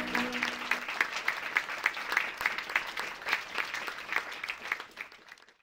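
Audience applauding, the clapping thinning and fading out to nothing near the end; the last held notes of music die away in the first second.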